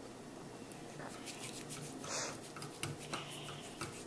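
Wire whisk stirring thick condensed-milk and egg-yolk pie filling in a mixing bowl: faint, irregular light clicks of the wires against the bowl, starting about a second in.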